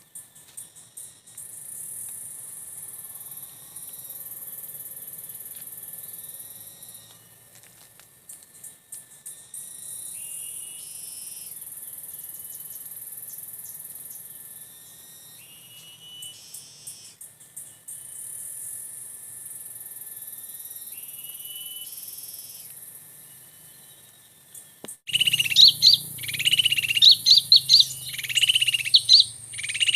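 Insects buzzing steadily with faint, scattered small-bird chirps. About 25 seconds in, loud, rapid, repeated chirping of small birds starts suddenly and carries on.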